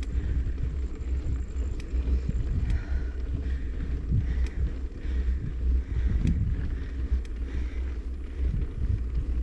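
Wind buffeting the microphone of a camera on a moving bike: a low, uneven rush, with about five sharp clicks or knocks scattered through it.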